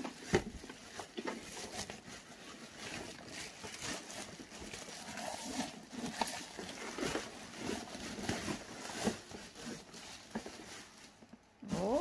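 Plastic packaging bags rustling and crinkling as they are handled and pulled off an appliance, with irregular crackles throughout; it goes quieter shortly before the end.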